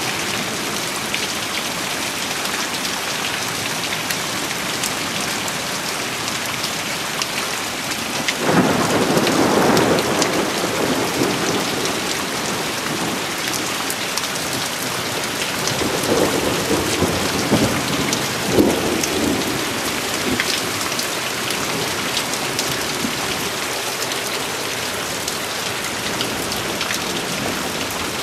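Heavy rain falling steadily on a muddy garden plot and leaves during a thunderstorm. Thunder rumbles about a third of the way in and again past the middle, ending in a short, louder burst.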